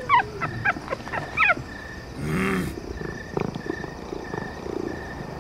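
Cartoon animal voices: several short, high, gliding squeaks in the first second and a half, then a brief low moan a little over two seconds in.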